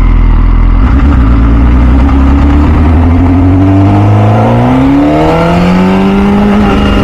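2006 MV Agusta F4 CC's 1078 cc inline-four engine pulling away, heard from the saddle. Its note steps up about a second in, then rises steadily as the bike accelerates and levels off near the end.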